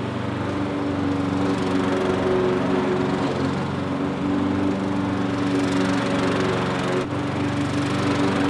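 Petrol walk-behind rotary lawn mower engine running steadily as the mower is pushed across the lawn, with a brief dip in the sound about seven seconds in.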